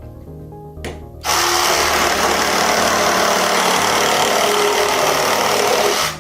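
Meec Tools Multi Series cordless reciprocating saw starting about a second in and cutting through a piece of wood with a wood blade, running steadily for about five seconds before stopping suddenly. Background music plays underneath.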